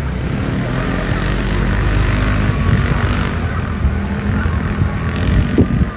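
A motor vehicle running while moving, a steady low rumble with a noisy hiss over it.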